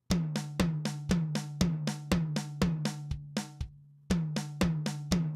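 Kick, snare and tom drum samples triggered from a drum MIDI part, playing back in a steady pattern of about four hits a second with a low tone sustained beneath the hits. The tom sample is mapped to the hi-hat note, so it fires on every hi-hat beat and sounds a little goofy. The pattern breaks off briefly a little past halfway, then resumes.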